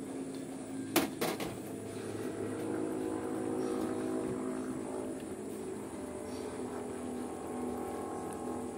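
Chicken and vegetable soup heating in a wok on the stove, coming back to the boil: a steady hum, with two sharp knocks close together about a second in.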